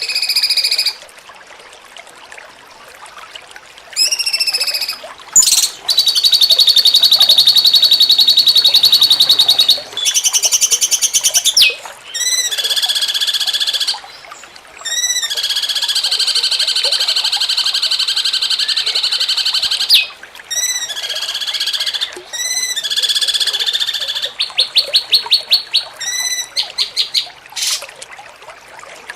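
Cucak cungkok song in the 'jengking munting' style: loud phrases of long, fast, buzzing trills alternating with runs of quickly repeated swooping chirps, each phrase lasting a few seconds with short pauses between.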